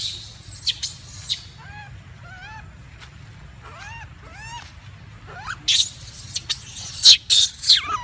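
Long-tailed macaques calling: a series of short, arched, high calls, each rising and falling in pitch, then louder harsh noisy bursts near the end.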